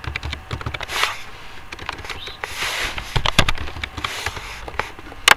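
Computer keyboard keys clicking in irregular runs of typing, with a few soft rushes of noise in between and one sharp, louder click near the end.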